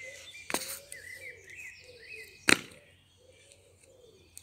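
Two sharp thuds of sneakers landing on brick paving, about half a second in and again, louder, about two and a half seconds in. Birds chirp faintly throughout.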